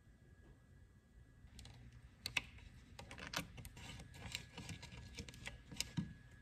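Faint, irregular light taps and clicks of fingers pressing a flexible LED strip into place along a wooden frame, starting about a second and a half in.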